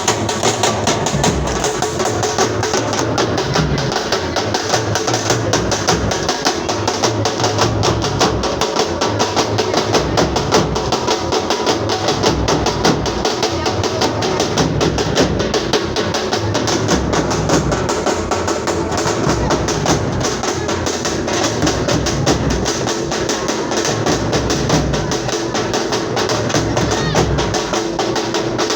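Music driven by fast, steady drumming that runs continuously.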